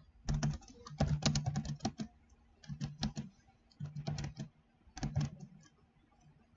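Computer keyboard typing in about five short bursts of rapid keystrokes with brief pauses between them.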